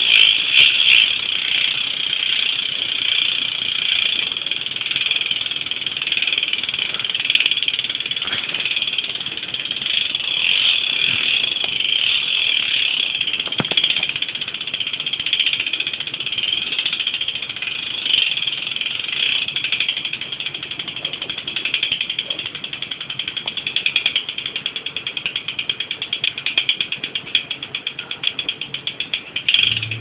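Sealed Rival BMX rear hub with a 9-tooth driver freewheeling as the rear wheel spins: its pawls make a rapid, continuous ratcheting buzz of clicks. Toward the end the clicks grow more separate as the wheel slows.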